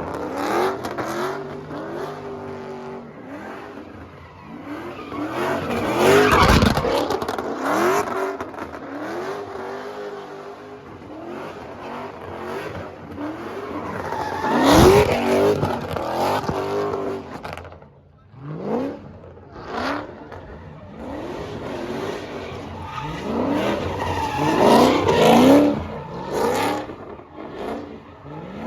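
Muscle car V8 engines being revved and driven hard. The engine pitch climbs again and again in repeated sweeps, loudest twice, with a short lull near the middle.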